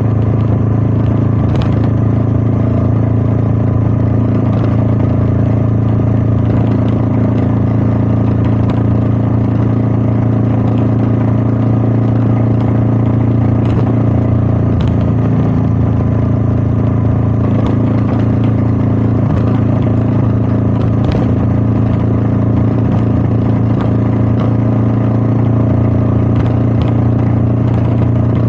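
Royal Enfield Meteor 350's single-cylinder engine running at a steady, unchanging pitch, with wind noise over it and a few faint ticks.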